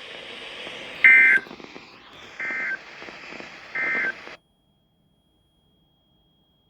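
Emergency Alert System SAME end-of-message code: three short bursts of warbling digital data tones, about a second and a half apart, over broadcast static that cuts off suddenly after the third burst.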